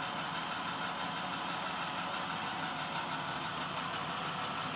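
Yellow school bus's engine idling steadily while the bus stands stopped.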